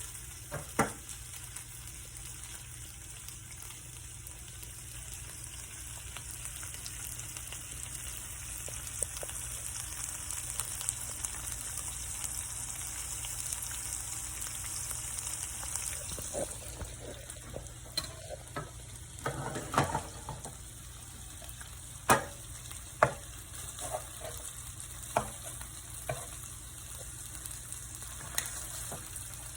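Small pieces of perch sizzling steadily in a frying pan on the stove, nearly done. In the second half a few sharp clicks and knocks sound over the sizzle.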